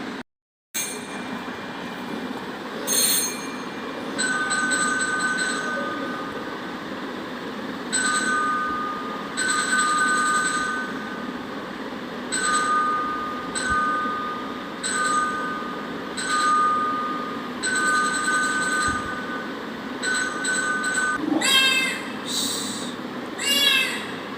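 Recorded train sound: a two-note horn sounding in a series of short blasts over a steady rumble. Near the end come two rising, wavering whine-like calls.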